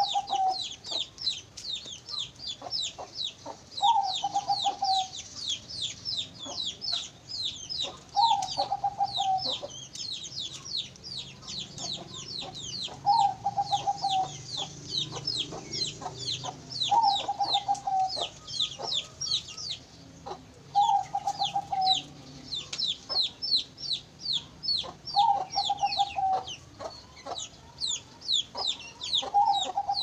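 Zebra dove (perkutut bangkok) cooing, a short trilled phrase repeated about every four seconds, eight times. Under it runs a steady chatter of quick, high chirps from munias (emprit).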